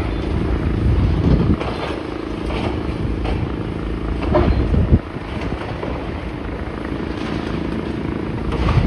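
Diesel engine of demolition machinery running steadily on the site, under wind rumble on the microphone. There are a few scrapes and knocks, with the loudest clatter about four to five seconds in.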